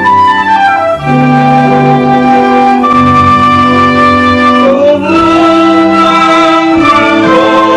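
Theatre pit orchestra playing, with strings and woodwinds holding long chords that change every two seconds or so.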